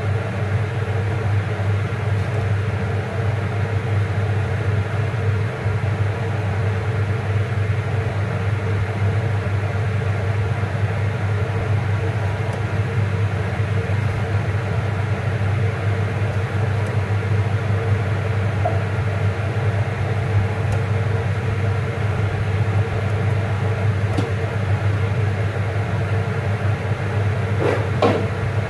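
Steady low mechanical hum over a light hiss, unchanged throughout, with a few light knocks near the end.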